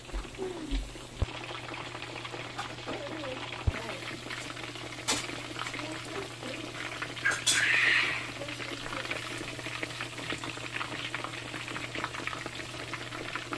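Hot oil sizzling and crackling steadily in a cast-iron skillet, frying chapli kebabs, with a louder burst of sizzle about seven seconds in and a few sharp pops.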